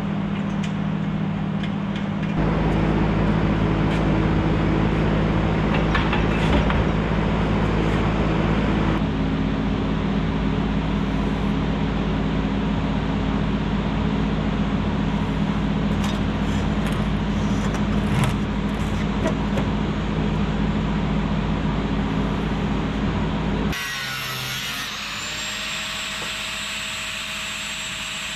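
Steady, loud machine hum and noise that changes abruptly twice. Near the end, a corded angle grinder spins up with a rising whine and settles into a steady high whine.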